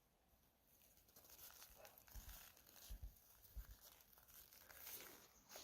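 Near silence, with a few faint, soft low thumps and light crunching.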